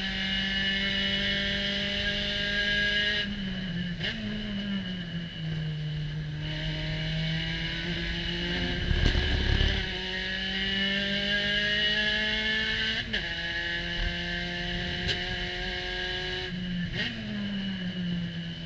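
Spec Racer Ford's four-cylinder engine heard from the cockpit at racing speed. A few seconds in its pitch drops and steps as the car brakes and shifts down from fourth to third, then climbs slowly under acceleration. There is a loud rumble about nine seconds in, and the pitch changes sharply twice near the end as the throttle is lifted and reapplied.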